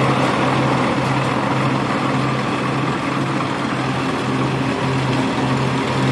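Engine of a rice harvesting machine running steadily under a dense mechanical clatter and whir.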